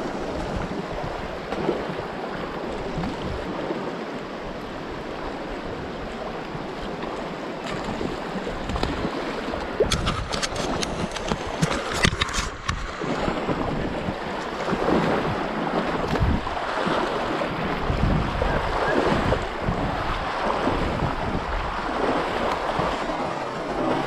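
Fast, shallow river water rushing over rocks close to the microphone, a steady hiss. A run of sharp clicks comes about halfway through, and low gusts of wind buffet the microphone in the second half.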